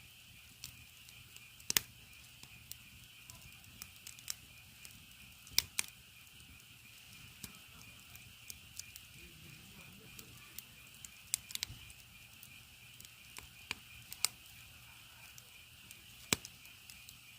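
Firewood burning with irregular sharp crackles and pops, over a steady high chirring of insects.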